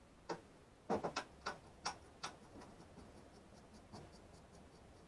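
A string of light clicks and knocks, about seven in the first two and a half seconds, then a few fainter ticks: small hard objects or parts being handled during the work.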